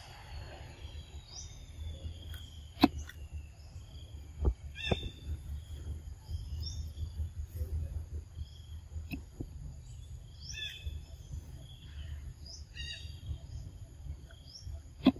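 Forest ambience: a steady high insect drone with short bird chirps repeating throughout, over a low rumble. Two sharp clicks stand out, one about three seconds in and one near the end.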